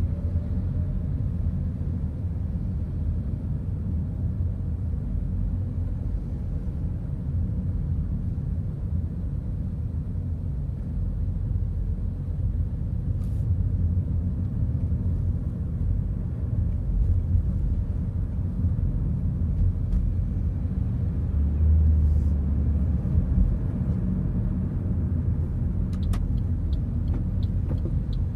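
Steady low rumble of a car's engine and tyres heard from inside the cabin while driving slowly in city traffic. A run of quick, evenly spaced faint ticks starts near the end.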